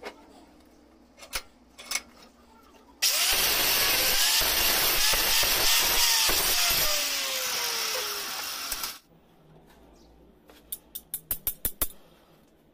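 Handheld angle grinder grinding into steel clamped in a bench vise, running loud for about six seconds and then stopping suddenly. Near the end comes a quick run of light metallic clicks.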